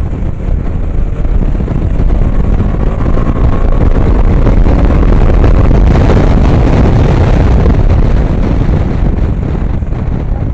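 A vehicle on the move, its rumble mixed with wind rushing over the microphone, swelling toward the middle and easing slightly near the end.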